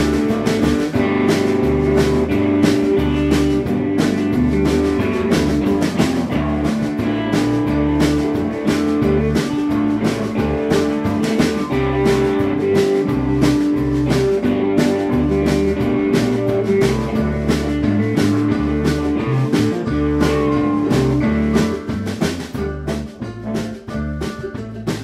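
A blues band playing live. Electric guitar and a stepping bass line sit over a steady drum-kit beat, with sustained held notes above them. The band drops noticeably quieter about three-quarters of the way through.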